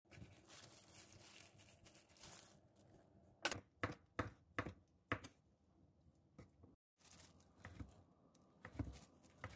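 Kitchen knife cutting on a wooden cutting board. Faint slicing comes first, then about five sharp knocks in quick succession as the blade chops imitation crab sticks, and after a brief silence a few softer cuts through sheets of fish cake.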